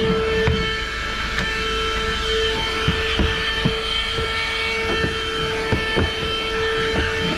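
12-volt car vacuum cleaner running with a steady high-pitched motor whine, with scattered light knocks through it.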